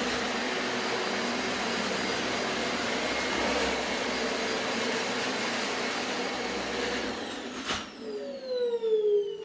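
Dyson DC25 upright vacuum cleaner running steadily, then switched off about seven seconds in, its motor winding down with a falling whine. There is a sharp click during the wind-down.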